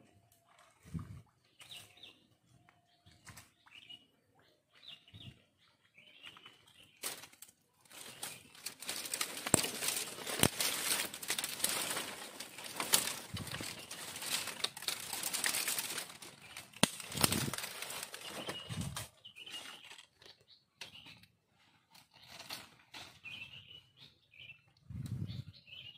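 Dry bamboo twigs and leaf litter crackling and rustling as someone pushes through undergrowth, loudest for about ten seconds in the middle, with sharp snaps among it. Faint bird chirps are heard in the quieter stretches.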